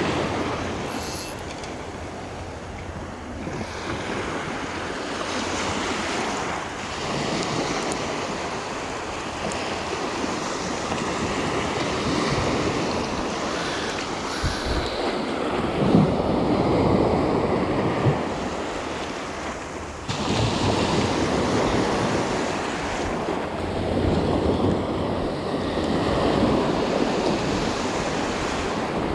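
Sea waves washing ashore, the noise swelling and easing every few seconds, with wind buffeting the microphone.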